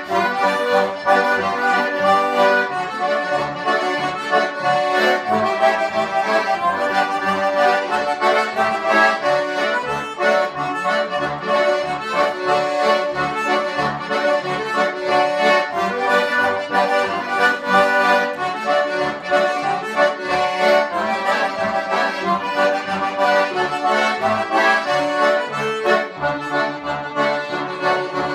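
Two concertinas and a piano accordion playing a tune together, with many sustained reedy chords over a steady, evenly repeating bass beat.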